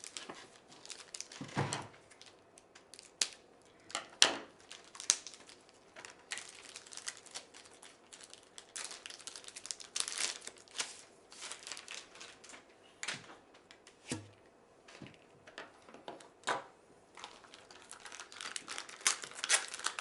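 Plastic packaging crinkling and rustling as it is handled and unwrapped, with scattered sharp clicks and small knocks; the loudest bursts come a second or two in and about four seconds in.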